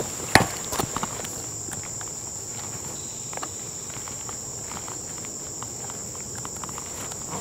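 Steady high-pitched drone of a summer insect chorus. Two sharp knocks come in the first half-second, then a few fainter scattered ticks.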